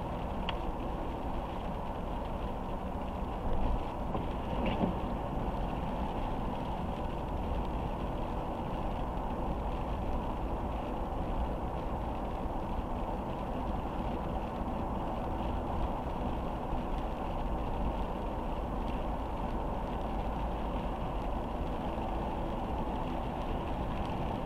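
Steady road noise of a car driving on a wet road in rain, tyres hissing on the wet surface, heard from inside the car. Two brief louder knocks come around four and five seconds in.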